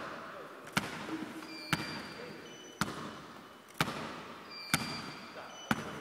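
Basketball dribbled slowly on the floor, six sharp bounces about a second apart, each echoing in a large gym hall.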